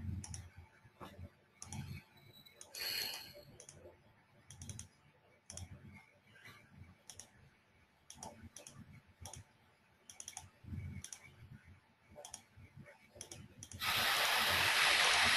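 Irregular clicks of a computer mouse and keyboard at a desk. Near the end a loud, steady rushing noise starts suddenly.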